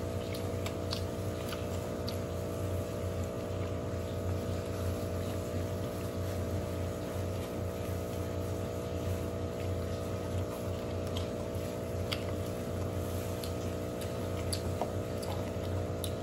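A steady low mechanical hum, with scattered faint clicks and plastic rustles from people eating by hand in plastic gloves.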